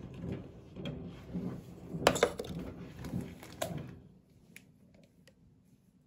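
Plastic fabric-softener bottle being handled and its cap opened, with a sharp snap about two seconds in and a second click over a second later, then a few faint ticks.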